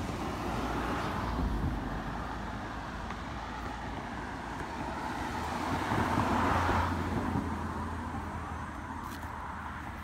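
Road traffic noise, with a passing vehicle swelling and fading about six to seven seconds in.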